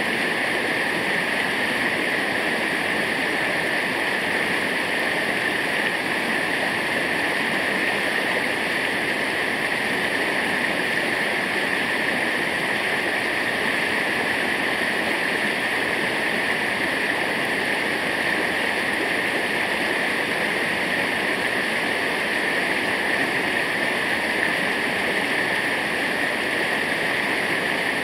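Steady rush of falling water from a waterfall, an even, unchanging roar.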